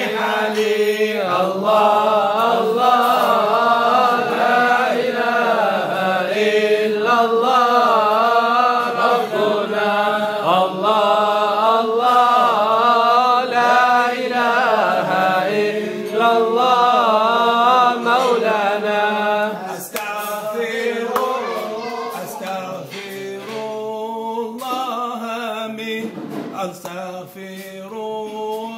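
A man chanting a Mawlid devotional song in a long, wavering, ornamented melody. It gets quieter about twenty seconds in.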